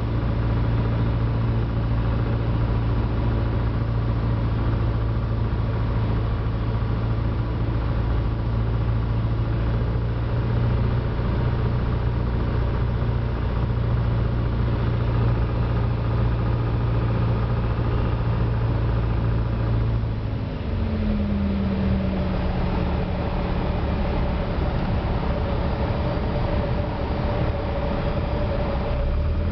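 A Piper PA-28's single piston engine and propeller droning steadily, heard inside the cabin. About two-thirds of the way in, the engine note drops and settles lower as power comes off for the landing.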